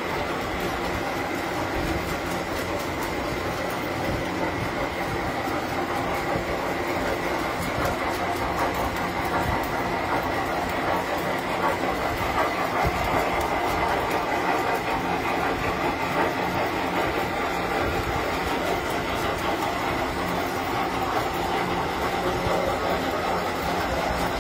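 Tinplate toy trains running on metal track: a steady mechanical running noise of motors and wheels, with a fine continuous clicking and rattle.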